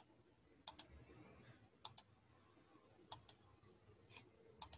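Faint computer mouse clicks, coming as quick double clicks, four times about a second and a bit apart.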